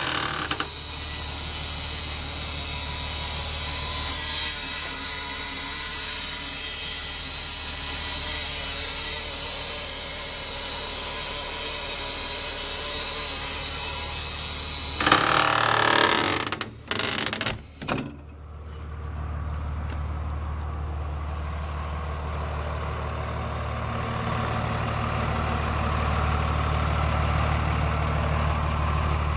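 Engine of a 1999 Blue Bird TC2000 front-engine school bus idling steadily. For about the first half a loud steady hiss sits over it. A little past halfway the sound drops out briefly, then the engine idles on alone.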